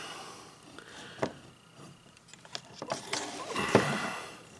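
Handling noise from a plastic trailer-connector housing and its cable being turned over in the hands on a workbench: scattered light clicks and knocks, and a louder rustle near the end.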